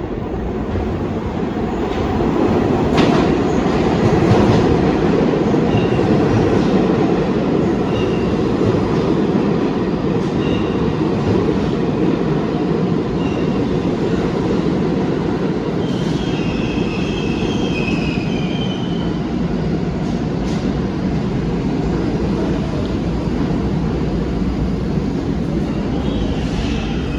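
New York City subway train (Q train, BMT Brighton Line) running on the rails with a steady rumble, a few sharp clacks over rail joints, and short high wheel squeals about two-thirds of the way in and again near the end.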